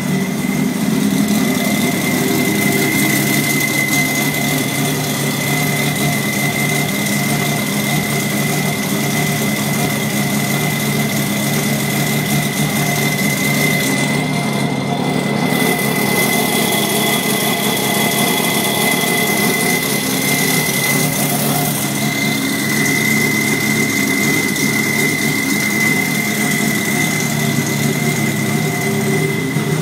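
Turbocharged engine of a Mazda RX-8 race car idling steadily, with a thin, steady high-pitched whine over it.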